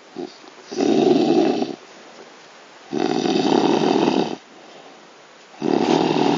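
A man snoring loudly: three long snores, each about a second or more, coming roughly every two and a half seconds, with a short snort at the very start and quiet breathing in between.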